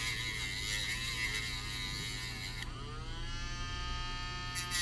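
Handheld rotary tool (Dremel) running with a steady hum and whine. About halfway through its pitch rises and settles higher, and the hiss drops away until near the end.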